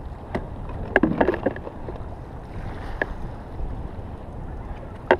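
Wind buffeting the microphone and choppy water lapping against a kayak hull, with a few sharp knocks: a cluster about a second in, one at about three seconds and one near the end.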